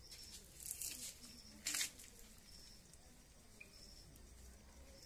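Quiet handling of wet, raw duck meat and innards: two brief squelching rustles in the first two seconds, with a faint high chirp repeating about once a second behind them.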